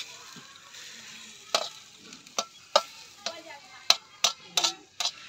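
Metal spatula stirring fenugreek greens in a black wok, knocking and scraping against the pan in sharp strokes about every half second from about a second and a half in, over a soft sizzle of the greens frying.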